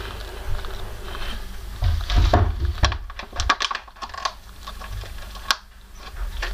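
Bearded dragon chewing an insect it has just been fed: a quick, irregular run of small clicks from about two seconds in, with a low thump as it starts and one sharp click near the end.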